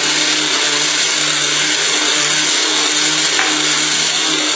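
Small countertop blender's motor running steadily at speed, grinding dry baking soda and salt into a fine powder. The loud whir with a low hum underneath holds even throughout.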